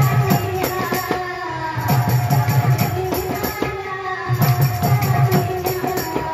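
Kirtan music without singing: drums and jingling percussion keep a quick rhythm under a held melody line, with a heavy low beat that comes back every couple of seconds.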